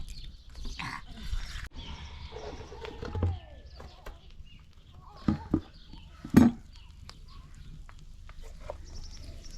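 Livestock bleating now and then, with three loud short cries or knocks between about five and six and a half seconds in, the last the loudest.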